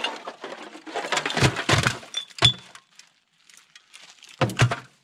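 Lake trash, including bottles, being dumped from a mesh bag into a plastic-lined metal trash can. Items clatter and clink as they fall, with heavy thumps about a second and a half in and again near the end, and a brief glassy ring in the middle.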